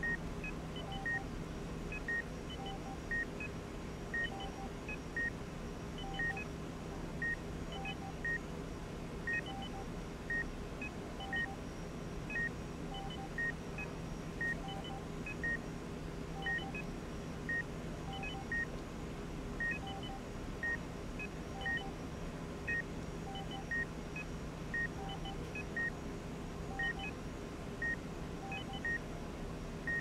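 Hospital patient monitor in an ICU room, beeping at a steady rhythm of about one short beep a second, with a lower and a higher beep in between every couple of seconds, over a steady low room hum.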